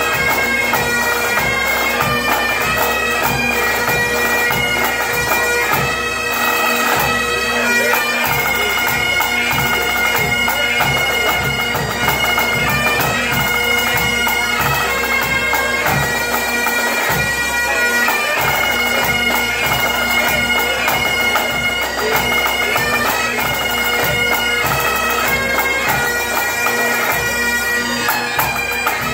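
Pipe band of Great Highland bagpipes playing a tune in unison over their steady drones.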